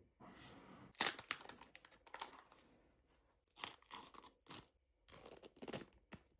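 Watch packaging being opened by hand: wrapping torn and crinkled in a series of short rustling bursts.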